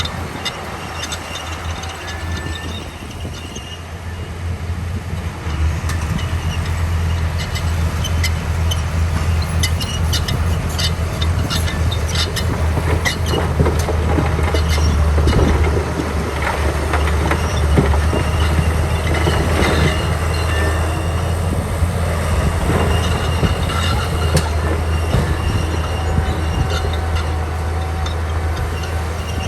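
Komatsu D41P crawler bulldozer working: its diesel engine running under load with a steady low rumble, and the steel tracks clanking and squeaking. It grows louder about six seconds in.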